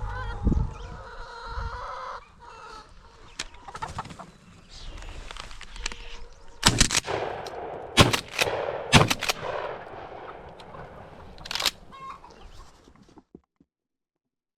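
Chickens clucking and calling, broken about halfway in by several sharp gunshots fired in quick succession. The sound cuts off abruptly near the end.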